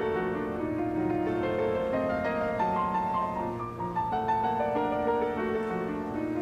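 Piano music: a run of held notes and chords.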